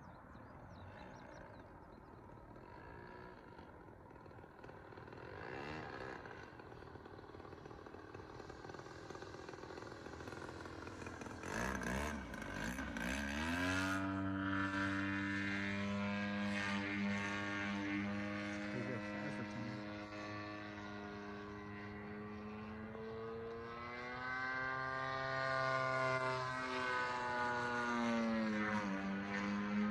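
Gas engine of a 92-inch Edge 540 RC aerobatic plane, faint at first, then rising sharply in pitch about twelve seconds in and holding loud and steady. Its note swells and dips with throttle changes, with a brief dip near the end.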